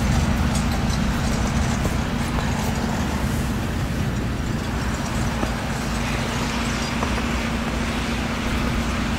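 Motor vehicle engine idling steadily, a constant low hum.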